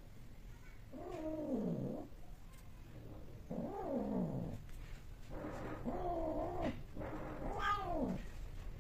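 Cats caterwauling during mating, with a tom mounted on a female in heat. There are four long, drawn-out yowls about one to two seconds apart, each sliding down in pitch at its end.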